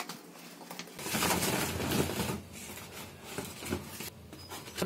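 Brown paper bag crinkling and rustling as okra pods are tipped out of it into a plastic bowl, with a few light knocks of pods landing. The rustling is loudest about a second in and eases off after a couple of seconds.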